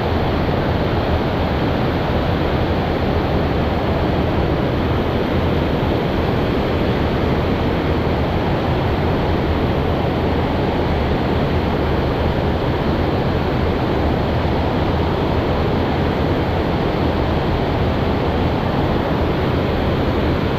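Steady rush of river water pouring over a lock and dam, an even noise that does not change.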